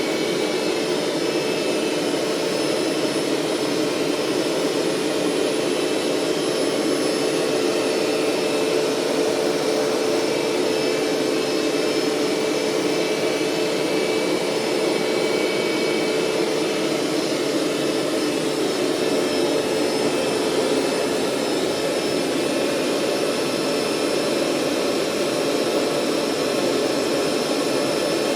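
Hoover SteamVac SpinScrub 50 upright carpet cleaner running steadily with its suction motor whining, as it draws water up from the carpet. A low hum in the motor noise fades out about two-thirds of the way through.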